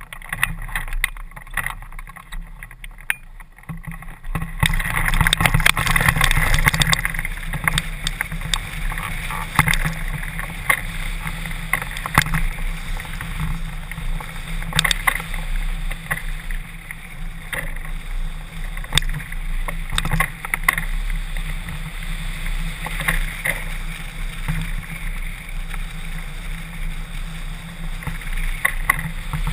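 Wind rushing over a hang-glider-mounted camera's microphone, rising sharply about four seconds in as the glider launches and gathers airspeed, then running steadily in flight. Occasional sharp knocks stand out above it.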